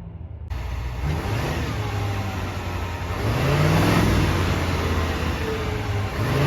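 Heavy-duty pickup truck diesel engine being revved with repeated throttle blips, its pitch rising with each blip. It is louder from about halfway in.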